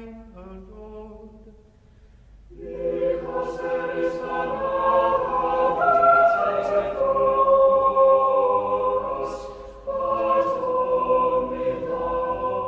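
A single voice chanting the end of a versicle, then from about two and a half seconds in a church choir answering in full harmony, unaccompanied, with sustained chords; the choir starts a new phrase about ten seconds in.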